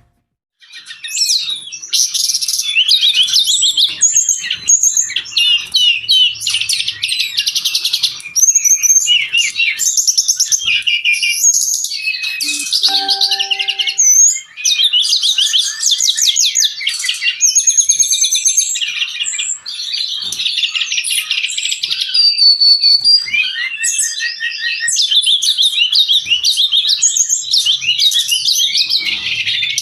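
Brown-chested jungle flycatcher singing non-stop: a fast, high-pitched run of trills, twitters and warbled phrases with hardly a break.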